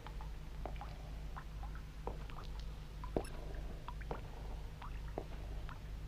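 Small pitched plinks and plops at an irregular pace, several a second, over a steady low hum; the loudest plop comes about halfway through.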